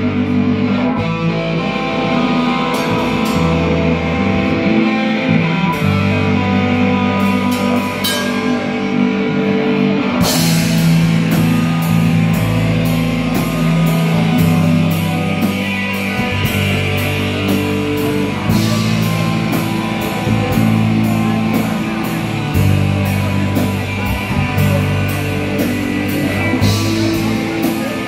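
Heavy metal band playing live: distorted electric guitars and bass holding low chords and riffs over a drum kit, with the cymbals striking steadily from about ten seconds in.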